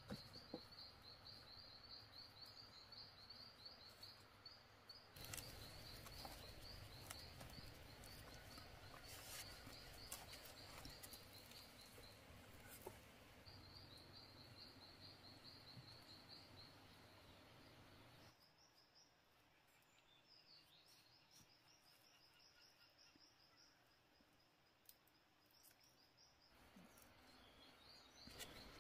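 Faint jungle ambience: a rapid high-pitched chirping repeated over and over, with scattered light clicks and rustles. The background noise drops quieter about two-thirds of the way in.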